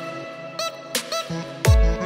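Electronic background music with a beat, ending in a deep bass hit that falls in pitch near the end.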